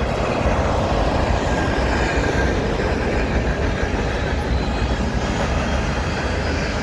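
CN freight train's cars rolling past on the rails, a steady, even noise of wheels on track.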